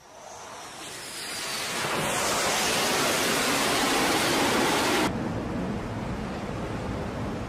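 Jet engine noise on an aircraft carrier's flight deck: a rushing roar that builds over about two seconds and stays loud, then cuts off suddenly about five seconds in. A steadier, quieter rush of wind and sea follows.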